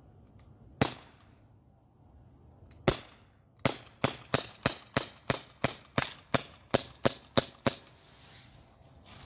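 Umarex Glock 19 Gen 3 non-blowback CO2 BB pistol firing: two single shots about two seconds apart, then a quick string of about thirteen shots at roughly three a second.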